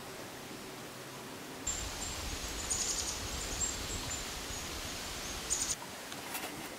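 Outdoor woodland ambience: a steady hiss, then from about two seconds in a low wind rumble on the microphone with short, high-pitched chirps, which give way to a quieter hiss near six seconds.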